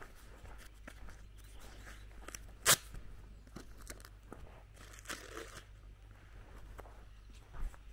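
Footsteps on a gravel and dirt lane, with one sharp, loud click about a third of the way in.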